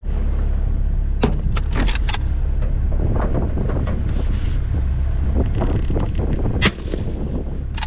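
A four-wheel-drive vehicle's engine running with a steady low rumble. A few sharp knocks and rattles come between one and two seconds in, and another near the end.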